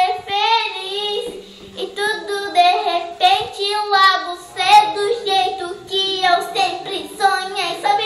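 A young girl singing a pop song on her own, in phrases of held and gliding notes with short breaks between.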